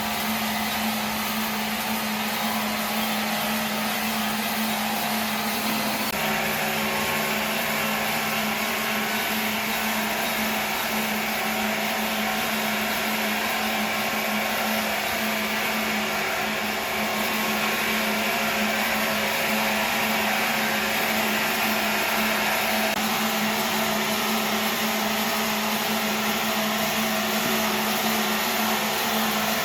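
A powered machine running steadily at high speed, a continuous hum over a hiss, with a slight shift in tone about six seconds in.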